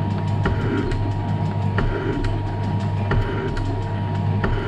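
Metal shaper running and taking cuts: a steady motor hum with sharp clicks coming roughly twice a second as the ram strokes back and forth.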